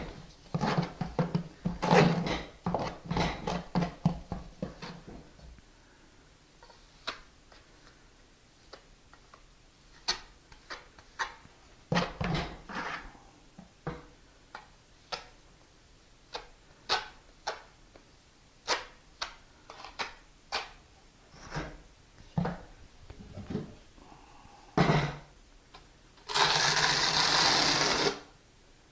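Trowel or putty knife scraping and tapping while thin-set mortar is spread on the back of a ceramic tile and on the wall: a quick run of scraping strokes at first, then scattered short scrapes and clicks, and a loud steady rasping scrape lasting about two seconds near the end.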